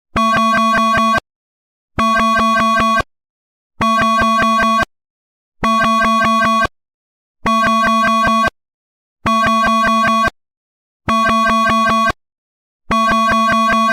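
Emergency alert alarm tone played in reverse: eight identical electronic bursts about a second long, each followed by a gap of just under a second. Each burst holds two steady higher tones over a low, pulsing buzz.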